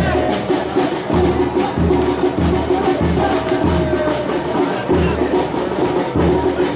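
Football supporters' drums beating a steady rhythm, about two beats a second, with a chanted tune carried over the beat.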